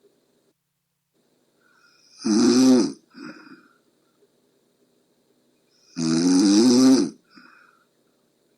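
A sleeping person snoring: two loud snores about four seconds apart, each lasting under a second and followed by a short, softer breath.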